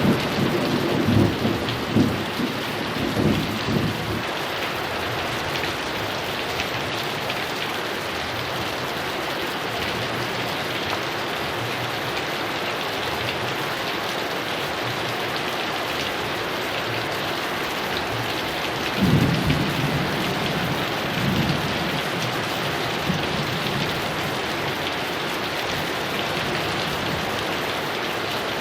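Heavy rain falling steadily, with thunder rumbling through the first few seconds and dying away, then another roll of thunder about two-thirds of the way through.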